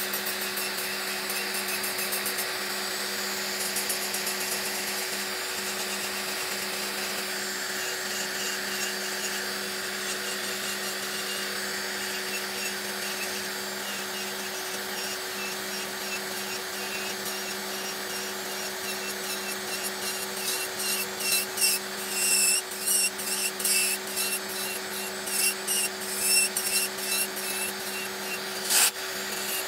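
Electric nail drill running steadily with a motor hum, its bit grinding gel off a fingernail in a fill-in nail removal. In the second half the grinding turns louder and choppier as the bit is pressed on in short strokes, and there is a sharp click near the end.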